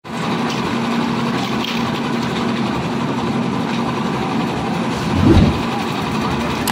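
Engine-driven concrete mixer running steadily while being loaded, a constant mechanical drone with a brief louder low rumble about five seconds in.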